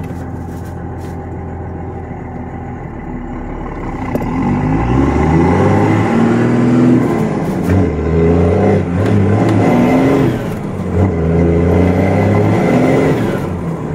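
First-generation Cummins 5.9-litre inline-six turbo diesel heard from inside the pickup's cab. It runs steadily at first, then revs up harder and louder from about four seconds in, dipping briefly twice. It is being driven on a clutch that has just burnt and is smoking.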